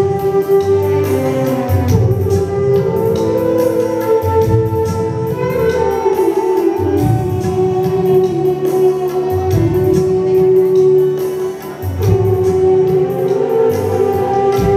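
Live band playing an instrumental passage of a Sinhala song: long held keyboard notes over a bass line and a steady drum beat, with no voice yet.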